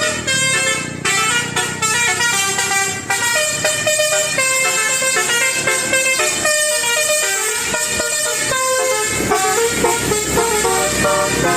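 Basuri telolet bus horn playing a quick tune, its loud tones stepping from note to note.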